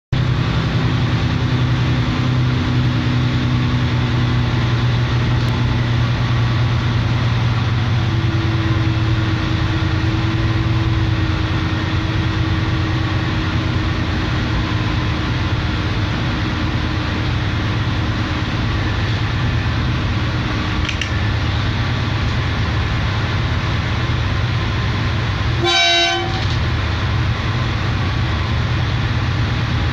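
SM42 6Dg/B diesel locomotive's engine running steadily, heard in the cab, while it pulls a 722-tonne train under cruise control at 20 km/h. Near the end, a short horn toot.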